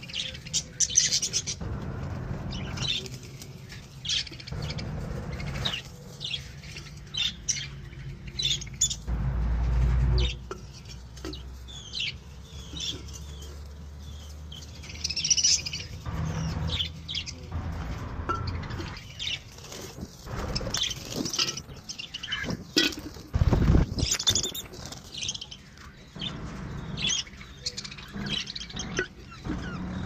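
Budgerigars chirping in many short, scattered calls. Low rumbles from handling on the microphone rise about nine seconds in and again near 24 seconds.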